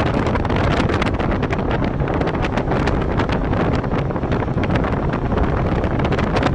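Loud, steady wind buffeting the microphone, with a constant rumble beneath it.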